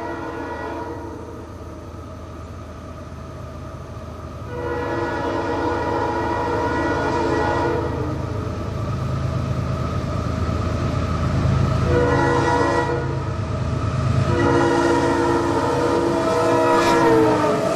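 Freight locomotive's multi-note air horn blowing: the tail of one blast, then a long blast, a short one, and another long one that sags in pitch near its end. Under it the locomotive's diesel rumble grows louder as the train approaches.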